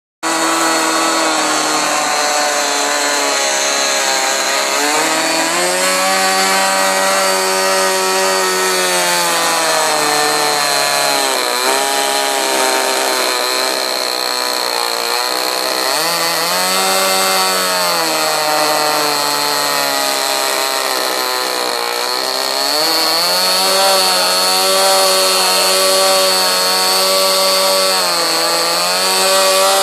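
O.S. 25 model-aircraft two-stroke glow engine running on a bench stand, brought back to life after at least ten years in storage. It runs at a high, buzzing speed that sags and picks up again several times.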